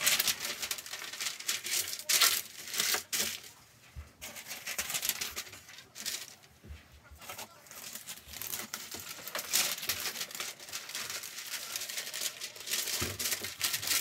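Sheets of newspaper rustling and crinkling in irregular spurts as they are unfolded and spread over the floor of a plastic tote.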